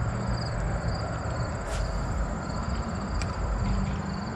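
A chorus of insects chirping in a steady pulsing trill over a low steady rumble, with a couple of brief sharp clicks.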